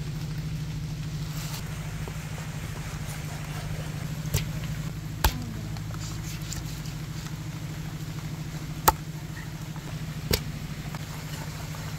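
A knife chops through devil ray flesh on a wooden chopping block: four sharp knocks spaced one to three and a half seconds apart, over a steady low motor-like hum.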